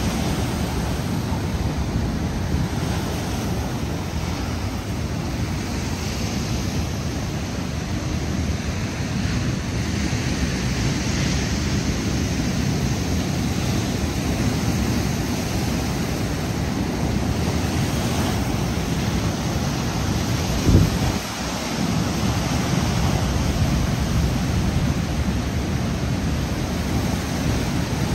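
Steady rush of surf with wind buffeting the microphone, swelling and easing now and then. A single low thump about 21 seconds in.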